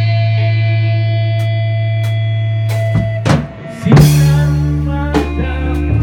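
Live rock band with electric guitar played through a Marshall amp. A chord rings out and is held for about three seconds. After a few sharp drum hits and a brief gap, the full band comes back in loud with a cymbal crash about four seconds in, and drums and guitar keep playing.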